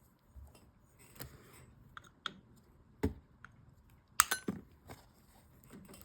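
Slabs of knapping stone clicking and clinking as they are handled: a scattered series of sharp hard clicks, the loudest about four seconds in with a brief glassy ring.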